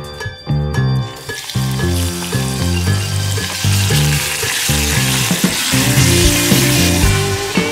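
Chunks of beef sizzling in hot olive oil in a cast-iron Dutch oven as they are browned, turned with a wooden spatula; the sizzle starts about a second and a half in as the meat goes in. Background music with a steady beat plays throughout.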